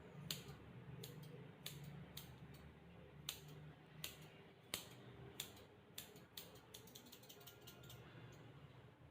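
Grooming scissors snipping at a dog's coat: faint, sharp snips at irregular intervals, then a quick run of snips near the end, over a low steady hum.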